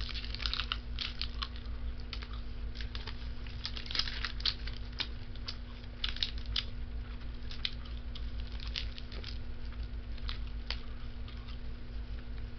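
Close-up chewing of a Slim Jim meat stick: irregular wet mouth clicks and smacks, over a steady low hum.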